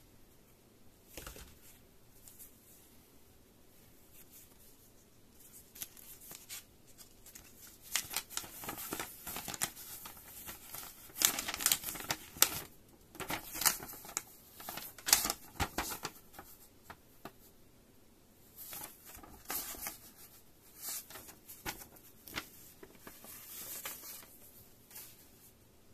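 A folded paper instruction leaflet being unfolded and handled by gloved hands: irregular rustling and crackling of paper, busiest and loudest in the middle and lighter toward the end.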